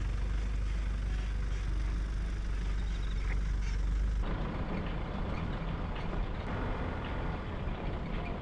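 4x4 expedition trucks driving past on a dirt track, engines giving a steady low rumble with tyre noise. About four seconds in, the low rumble drops back and the tyre and road hiss takes over.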